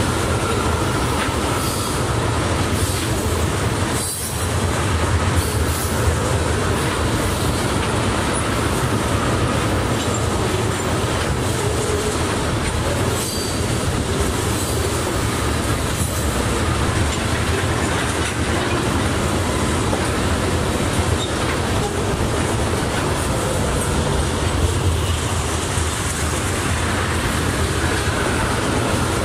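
Freight train of tank cars rolling past at speed: a steady rumble of steel wheels on rail with scattered clacks. A faint high wheel squeal comes and goes.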